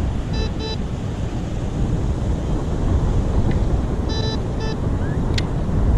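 Wind rumbling on the microphone over beach surf, with two pairs of short electronic beeps from the metal detector, the first pair early and the second about four seconds in. A sharp click comes near the end.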